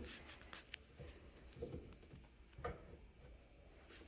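Faint clicks and light scraping from a hand tool and hands working a rubber windshield seal into place against the glass, a handful of soft taps spread a second or so apart.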